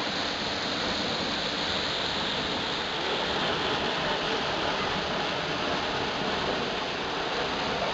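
Waterfall pouring down a rock face into a plunge pool: a steady rush of falling water.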